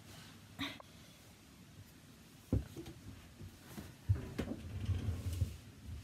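Bumps and knocks as someone settles on a carpeted floor and handles a shelf unit: a light knock about half a second in, a sharper knock about two and a half seconds in, then a run of muffled bumps and rustling from about four seconds.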